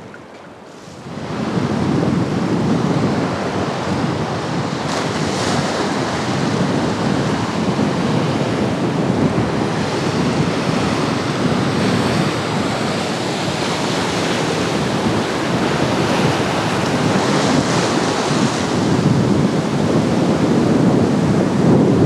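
Black Sea surf breaking and washing through the shallows, with wind buffeting the microphone. It comes up sharply about a second in and then runs on in slow surges.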